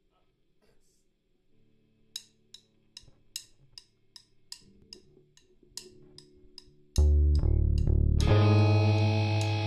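Opening of a rock instrumental: faint low held tones, then sharp percussion ticks about two and a half a second from about two seconds in. About seven seconds in, the full band comes in loud with bass guitar and guitar.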